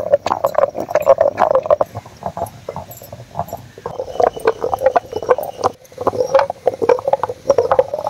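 Wet masala being ground in a traditional stone wet grinder (aattukal): the hand-turned cylindrical stone pestle knocks and scrapes against the stone mortar through the wet paste in a quick, irregular clatter, with a brief break about six seconds in.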